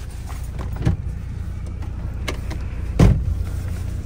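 A vehicle engine running with a steady low rumble. There is a knock about a second in and a louder knock about three seconds in.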